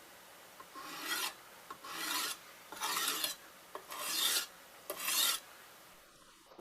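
Sharpening stone mounted on a fixed-angle knife sharpening jig being stroked along a knife blade: five strokes about a second apart, each lasting about half a second.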